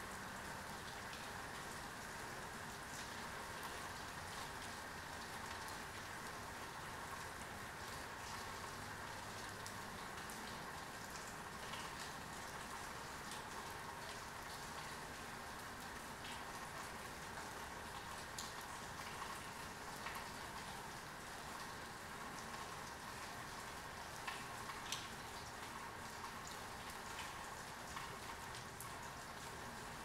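Heavy rain falling steadily, with a few sharper individual drops striking close by in the second half.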